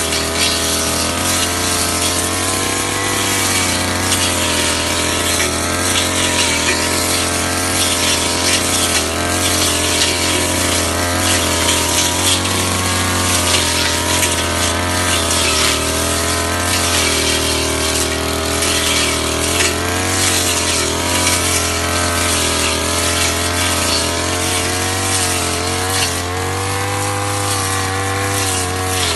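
Ogawa two-stroke petrol brush cutter running at high speed while its cutting head mows through grass and weeds. The engine pitch wavers up and down continually as the load changes.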